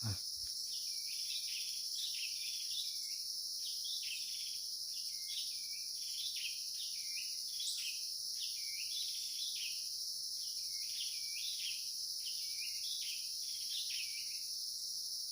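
Forest ambience: a steady high-pitched drone of insects, with short high calls repeating over and over, roughly one a second, from an animal in the trees.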